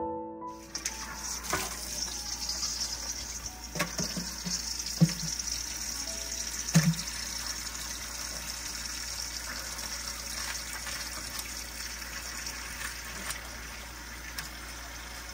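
Kitchen tap running in a steady stream into a stainless steel bowl in the sink. A few sharp knocks sound over the water, the loudest about five and seven seconds in.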